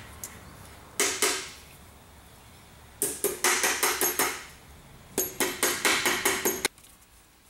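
Hammer tapping the metal tabs of a short-throw shifter's bottom plate back down: two blows about a second in, then two quick runs of sharp taps, one around three seconds in and one from about five seconds in.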